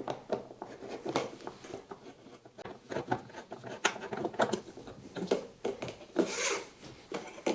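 Parts being handled and fitted by hand: an intake pipe being pushed onto the heater, with a series of small clicks and knocks and rubbing between them, and a longer scraping rub about six seconds in.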